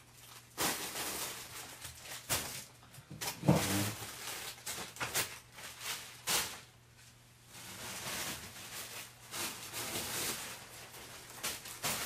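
Rustling and knocking of things being handled and moved about, with irregular crinkles and thumps, as clothes in plastic bags are fetched.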